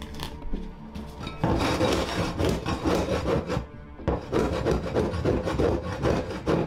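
Long-handled floor scraper pushed across a wooden subfloor, rasping as it scrapes up peeling old floor covering. The scraping starts about a second and a half in, breaks briefly near the four-second mark, then carries on.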